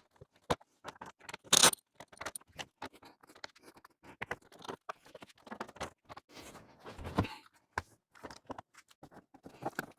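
Scattered clicks, knocks and scrapes of hands working on a truck seat and its fittings, with one short, louder rattling burst about a second and a half in.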